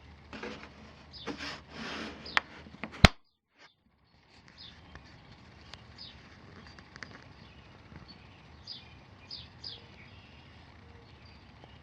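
Handling noises, rustling and scraping, ending in a sharp click about three seconds in. After a short break, faint birds chirp a few times over low background noise.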